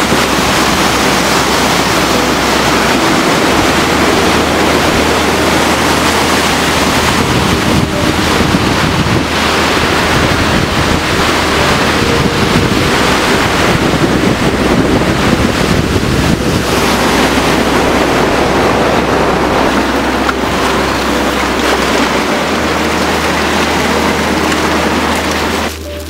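Fast-flowing open water of the Zanskar River rushing past the ice shelf: a loud, steady rush of churning water.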